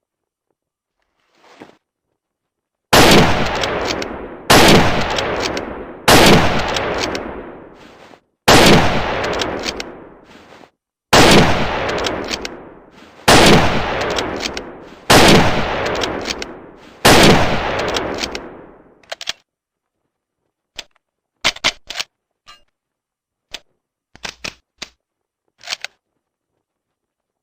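Lee-Enfield No.4 Mk1 .303 bolt-action rifle firing eight shots about two seconds apart, each with a long echoing tail. Then a run of short, quieter clicks.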